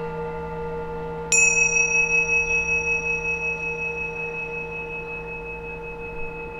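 Singing bowls ringing: a lower bowl's steady hum sustains, and about a second in a higher-pitched bowl is struck, its bright tone ringing with a slow wavering pulse and fading gradually.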